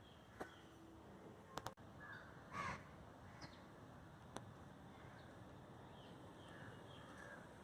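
Near silence with a few faint sharp clicks and one short harsh call, like a crow's caw, about two and a half seconds in.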